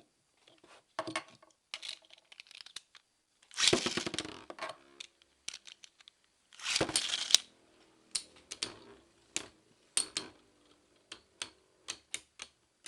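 Two plastic Beyblade spinning tops launched in turn with ripcord launchers, each launch a second-long zipping rattle, about 4 and 7 seconds in. Then the tops spin and clash in a plastic stadium with a string of sharp clicks over a faint steady hum.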